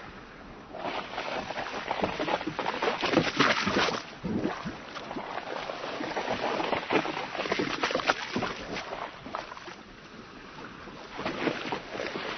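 Sea waves splashing and washing along a boat's hull, coming in surges with a short lull about ten seconds in before the water builds again.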